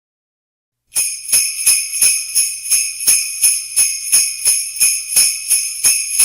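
Sleigh bells shaken in a steady rhythm, about three jingles a second, starting about a second in after silence.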